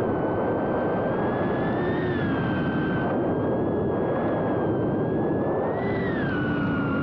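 BetaFPV Pavo30 cinewhoop drone's brushless motors and ducted propellers whining in flight, heard from on board. The pitch swells with throttle about two seconds in and again near the end, then drops back.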